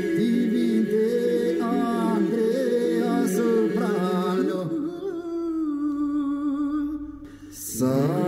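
Albanian elegy sung by male voices: long held, ornamented notes with slides between pitches. In the second half one voice holds a slowly falling note that fades, then a new note sweeps up sharply near the end.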